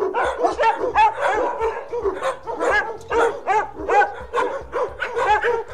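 Dogs barking in a quick string of short yaps, about four a second, beginning suddenly.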